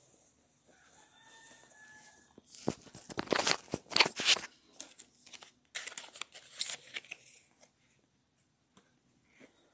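Two bursts of close rustling and crinkling, like paper or plastic being handled next to the microphone, the first about two and a half seconds in and the second near six seconds. Just before them, a faint rooster crow.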